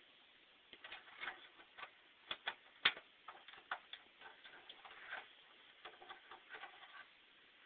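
Scattered light clicks and knocks of hand tools and metal clips on the truck, coming at irregular intervals with one sharper knock about three seconds in, as the factory U-clips are worked off.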